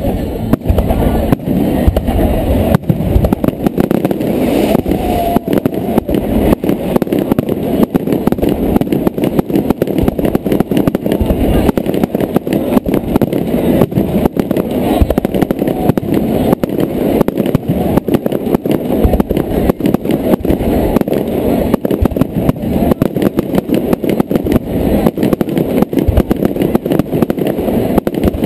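Aerial fireworks display: an unbroken barrage of bangs, several a second, heavy and low.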